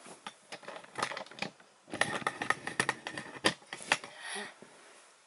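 Close-up handling noise: fingers tapping and fumbling at the camera, scattered clicks at first, thickening into a quick flurry of taps about two seconds in, then fading out near the end.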